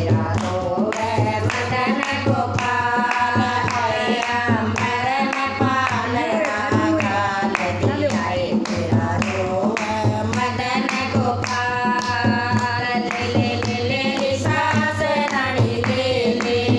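Women singing a Krishna bhajan together, with a dholak drum keeping a steady rhythm and hand clapping.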